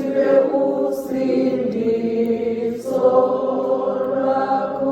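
Choir singing in harmony, holding long notes in a slow, chant-like hymn.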